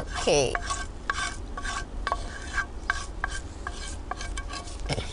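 Hot tempering of mustard seeds, cumin and curry leaves in oil sizzling as it is scraped out of a pan onto a chutney, with irregular scraping and tapping of the spatula against the pan.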